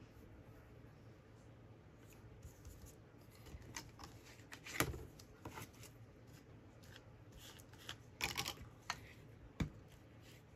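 Paper crafting at a cutting mat: paper and cheesecloth rustling and small tools being picked up and set down, giving soft scattered clicks and taps. The loudest clatter comes about five seconds in, with a cluster of rustles around eight seconds and a sharp tap near the end.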